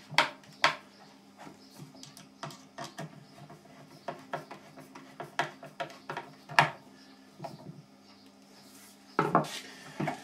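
Hand screwdriver driving 4 mm screws into plywood parts, heard as irregular small clicks and knocks of the screwdriver, screws and wooden pieces being handled, with a louder cluster of knocks about nine seconds in. A steady low hum runs underneath.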